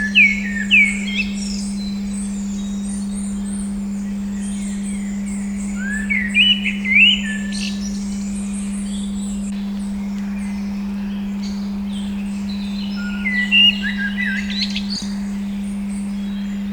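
A steady, pure 200-hertz tone hums throughout, with birds chirping over it in three short bursts of song: at the start, about six seconds in, and around thirteen to fifteen seconds in.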